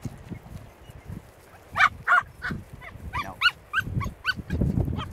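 A dog giving a quick run of about ten short, high-pitched yelps and whines over two to three seconds. Low rumbling noise follows near the end.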